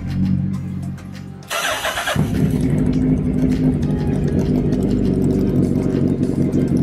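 A superbike engine starting: a short cranking burst about a second and a half in, then the engine catching and running steadily. Background music plays throughout.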